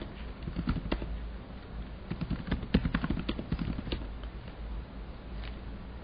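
Computer keyboard keys tapped in short irregular runs, thinning out after about four seconds, over a faint low hum.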